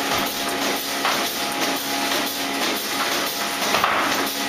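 Milking parlour machinery running: a steady hum with a regular, rapid hissing tick, about three a second, of the type the milking-unit pulsators make.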